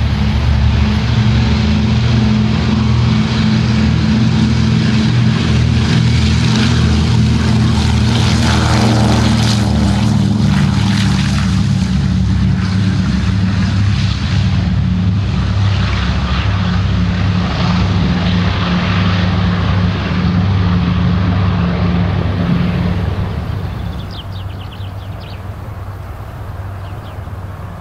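The two Pratt & Whitney radial engines of a Douglas DC-3 running at takeoff power: a deep, steady dull roar. Its pitch sweeps as the aircraft passes, about nine to ten seconds in. About 23 seconds in the sound drops away and fades as the aircraft climbs out.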